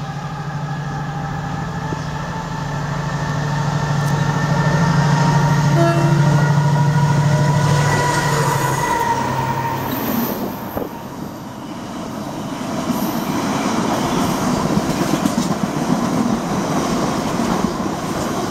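Colas Rail Class 70 diesel locomotive passing through at speed, its GE PowerHaul V16 engine running loud as it goes by, loudest about halfway through the first ten seconds. After about nine seconds the engine sound drops away and a long rake of loaded tank wagons rolls past, wheels rumbling on the rails.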